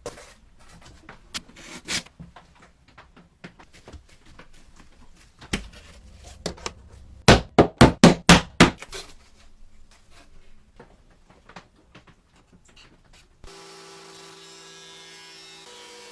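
Workshop handling sounds: scattered taps, knocks and rubbing, then a fast run of about eight hammer blows in the middle, roughly five a second. Near the end a steady electric buzzing hum starts.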